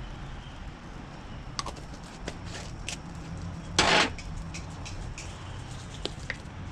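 Seasoning shakers and jars being handled over a charcoal barbecue: scattered light clicks and taps, and one brief, loud noisy burst about four seconds in, over a steady low background rumble.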